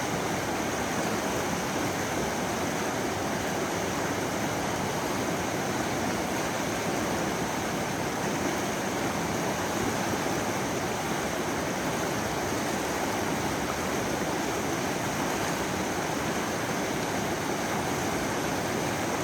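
Steady rushing of a fast river flowing over rocks, heard up close at the water's edge.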